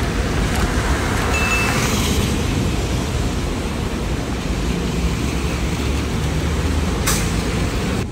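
City street traffic noise: a steady rumble of passing vehicles, with a short sharp click about seven seconds in.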